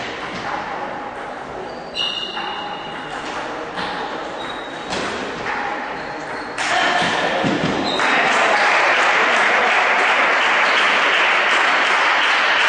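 Table tennis ball clicking off the bats and table during a rally, about one hit a second, with voices in the hall. About eight seconds in, loud applause starts and keeps going.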